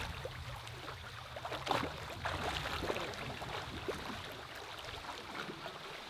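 Gentle splashing and lapping of pool water as a swimmer moves through it, with small irregular splashes and a low rumble that fades after a couple of seconds.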